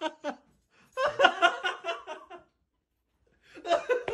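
A person laughing in short, quick bursts for about a second and a half. After a pause, a voice comes in near the end.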